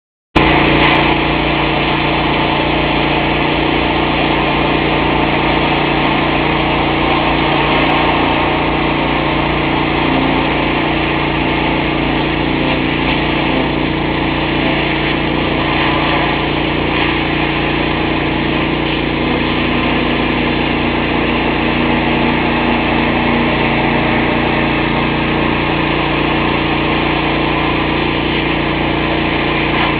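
Engine of a pressure washer running steadily at a constant speed.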